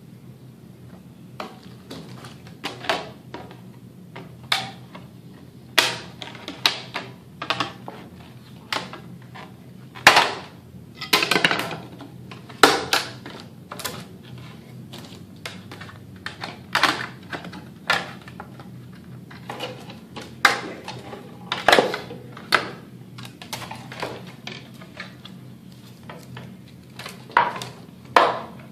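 Scissors cutting through thin white ABS plastic shin armor, a long run of irregular crisp snips and crunches about one every one to two seconds as the excess edge is trimmed away.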